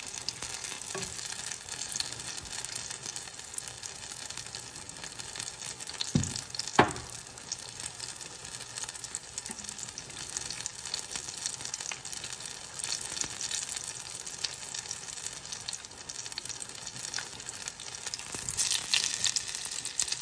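Apple fritters deep-frying in hot oil in a skillet: a steady sizzle. Two short knocks about six seconds in, and the sizzle grows louder near the end.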